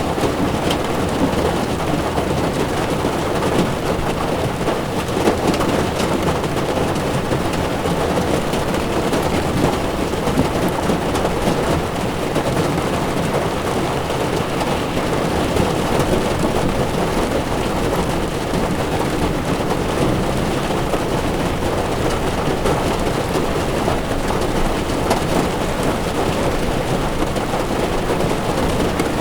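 Heavy rain falling on a moving car's windshield, mixed with tyre noise on a wet road: a steady, even rush with scattered drop ticks.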